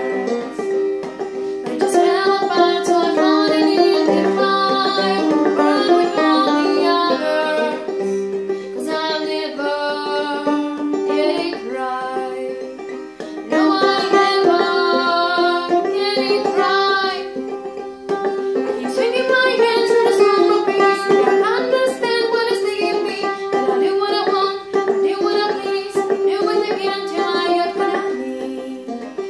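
Clawhammer (frailing) banjo strummed and picked in a steady old-time rhythm, with a repeating drone note, accompanying a woman's singing voice.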